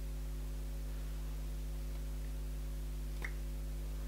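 Steady low electrical hum in the recording with no other sound, apart from a single faint click about three seconds in.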